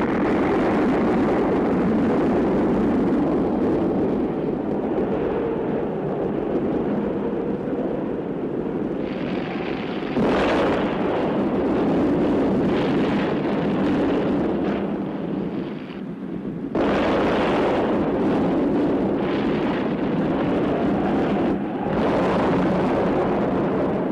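Loud, long rumbling of an atomic bomb blast and its shock wave, with sudden changes in the rumble about ten, seventeen and twenty-two seconds in.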